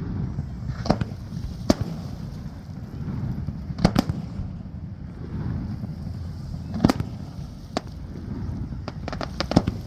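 Aerial fireworks shells bursting, sharp single reports spaced one to three seconds apart, then a quick cluster of cracks near the end, over a steady low background rumble.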